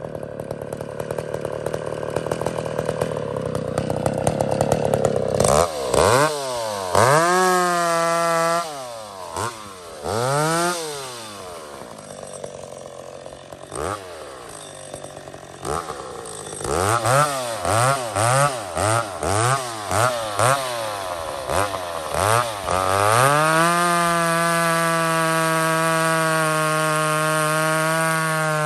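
Old McCulloch two-stroke chainsaw running: revved up and down several times, then dropping back to a lower note. A quick run of short throttle blips follows, then it is held steady at high speed near the end.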